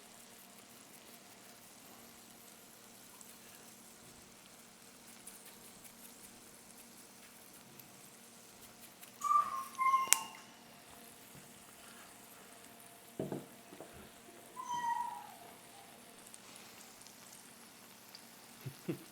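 A cat meowing: short calls about nine to ten seconds in and a falling meow about fifteen seconds in, with a single knock between them, over a faint steady background hum.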